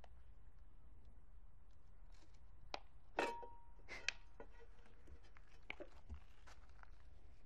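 Scattered scrapes and knocks from a broom's bristles and a black cocker spaniel puppy's paws scuffling on stone paving as it plays with the broom. The loudest comes about three seconds in, then a few more through the middle.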